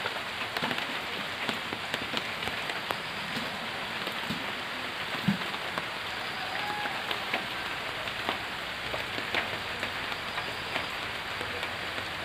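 Steady rain falling, heard as an even hiss with many small drop ticks.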